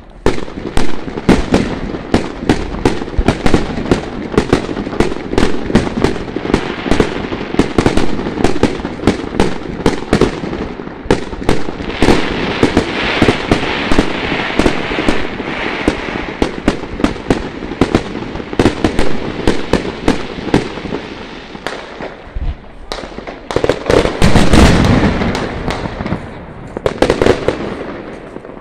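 Aerial fireworks display: shells bursting in a rapid barrage, many bangs a second, with a stretch of crackling hiss in the middle and a louder swell of bursts near the end.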